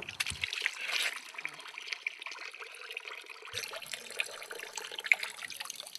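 Water trickling from a thin plastic pipe and splashing into a puddle as hands wash in it.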